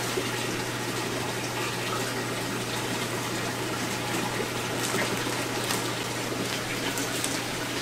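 Steady rush of water circulating through saltwater aquarium tanks and their plumbing, over a low, even pump hum.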